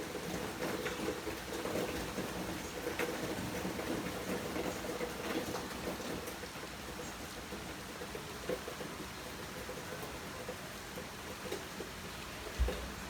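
Steady rain shower falling, an even hiss with many small scattered drip and patter ticks. A low hum sits under the rain through the first half and fades, and one short low thump comes near the end.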